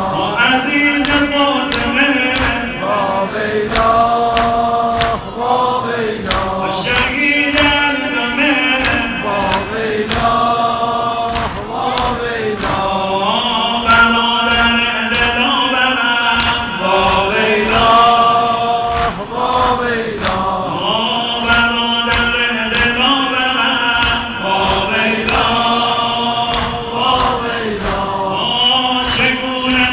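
Shia mourning lament (noheh) sung by a male lead on a microphone through loudspeakers, answered by a crowd of men chanting in unison. Through it runs the steady beat of the mourners' hands striking their chests (sineh zani).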